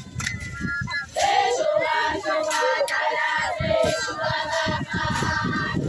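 Large group of girls and young women singing together in chorus as they march, the singing swelling about a second in, with low thuds underneath.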